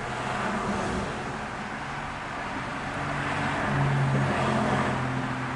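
A motor vehicle running, a steady low engine hum over road noise that swells a little about four seconds in.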